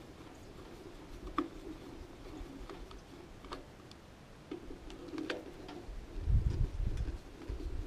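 Scattered light clicks and ticks of a screwdriver working the screws of a cement mixer's drive housing and switch box. A low rumble comes in about six seconds in.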